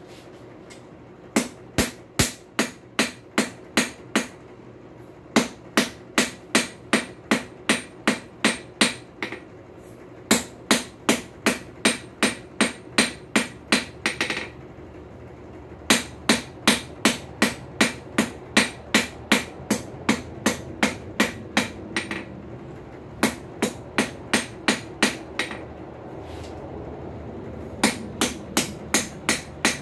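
Two-pound ball-peen hammer striking a hot high-carbon steel bar on an anvil as a square punch's taper is drawn down. The blows come in runs of about two to three a second, broken by short pauses, over the steady roar of the forge.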